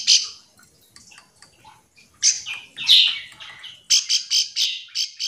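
Ciblek sawah, a small prinia, giving its calling-up call. Sharp, high chirps come in quick runs of about six notes a second: a run ends just at the start, a couple of phrases follow after a pause of about two seconds, and another fast run begins a little before the end.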